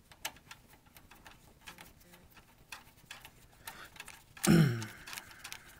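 Light, irregular clicking and ticking of a wireless card's screw-on antenna being turned by hand onto its threaded connector on the metal card bracket. A brief louder sound comes about four and a half seconds in.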